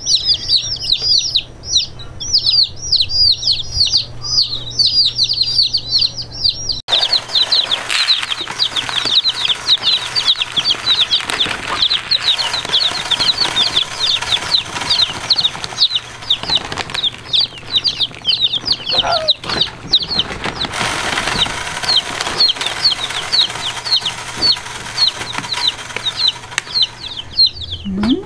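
A brood of day-old chicks peeping nonstop: many high, short chirps, each sliding downward, several a second and overlapping. About seven seconds in, a steady hiss comes in behind them, and later the peeps grow sparser.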